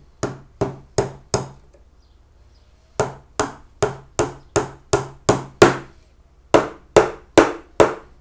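Small cross-pein hammer tapping gimp pins through a pine beehive frame's bottom bar: sharp, evenly spaced strikes about two and a half a second, each with a short ring. The strikes come in three runs, four, then about eight, then about five, with short pauses between.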